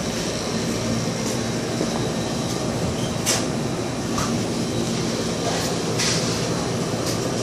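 Steady indoor hum and rushing noise, with a few brief rustles from the phone being handled.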